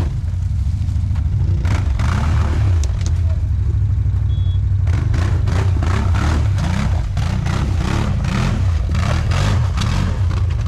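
ATV engine working under load as the quad climbs a rocky, muddy creek bed, its engine note rising and falling with the throttle. From about halfway in, there is a run of uneven cracks and knocks.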